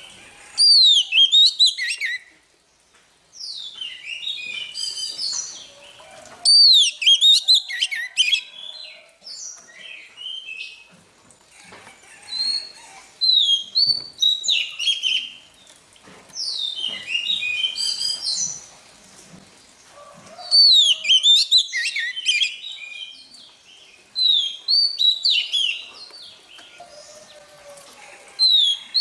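Oriental magpie-robin singing: loud, varied whistled phrases of quick sliding notes, each lasting a second or two, separated by short pauses.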